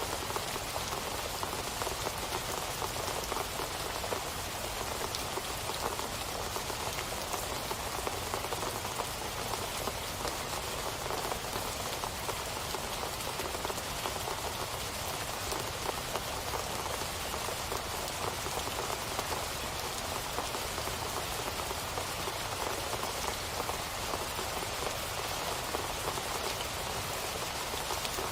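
Steady rain falling, an even hiss dense with fine drop ticks.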